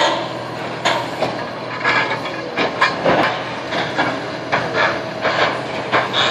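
Liebherr demolition excavator's grapple tearing into a building: repeated irregular crashes and scrapes of corrugated metal sheeting and debris, the loudest right at the start, over the steady run of the excavator's diesel engine.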